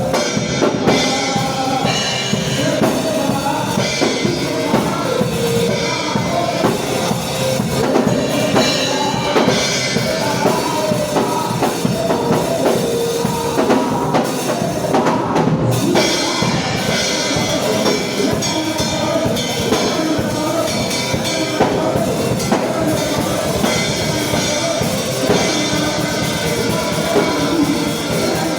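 Band music with a drum kit keeping a steady beat under other instruments.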